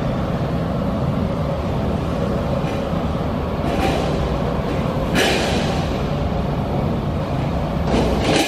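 Factory machinery running with a steady low rumble, with a few sharp metallic knocks, one near the middle and one near the end.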